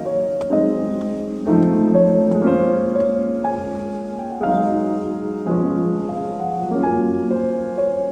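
Background piano music: slow sustained chords changing about once a second.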